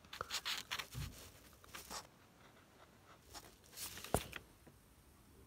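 Felt-tip marker scratching on paper in quick colouring strokes for about two seconds, then a second short spell of scratching and rustling ending in a sharp click a little after four seconds in.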